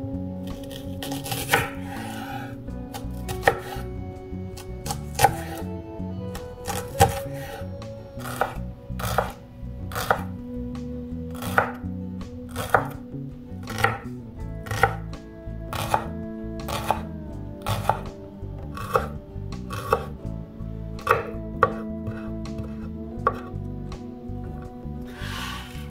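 Santoku knife chopping a shallot on a bamboo cutting board: sharp knocks of the blade on the wood, spaced out at first, then about one a second. A longer, noisier sound comes near the end.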